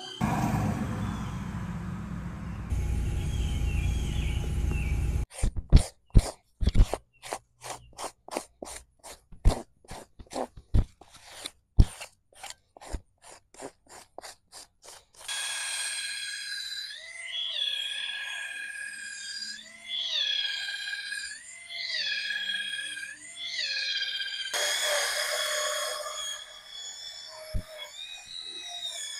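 Quick scraping strokes of a hand tool raking across a carpet floor mat. Then a drill-driven scrub brush whirs on a wet rubber cargo mat, its pitch rising and falling about once a second as it is pushed back and forth.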